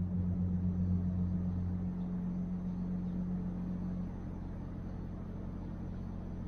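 A steady low mechanical hum over faint background noise, its deepest part fading about two seconds in and the rest easing off again near four seconds.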